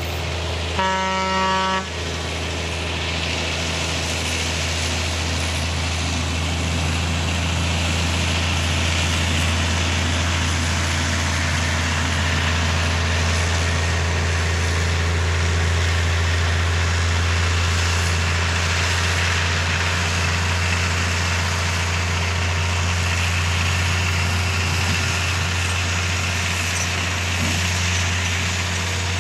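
Narrow-gauge sugar cane train locomotive sounding a short horn blast about a second in. Its diesel engine then runs steadily, with the noise of the loaded cane bins rolling along the track as the train passes.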